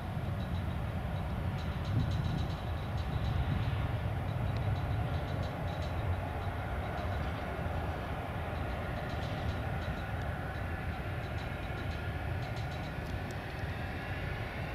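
Boeing 737-800's CFM56 turbofan engines rumbling steadily as the jet rolls along the runway after landing, with faint whining tones that rise in pitch near the end.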